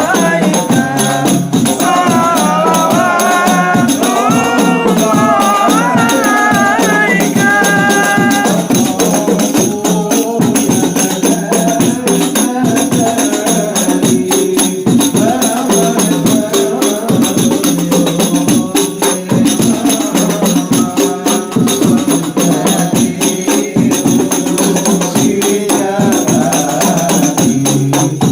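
A group singing Islamic devotional songs (shalawat) to rebana frame drums beating a steady rhythm. The sung melody stands out for the first several seconds, after which the drumming dominates.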